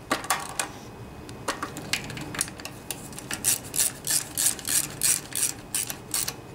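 Ratchet wrench clicking through short back-and-forth strokes, about two a second, as the carburetor mounting nuts are snugged down just tight enough to crush the gaskets.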